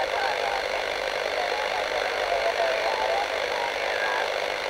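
Shortwave receiver on the 14 MHz band giving steady hiss and static. A weak voice from a distant station wavers faintly under the noise.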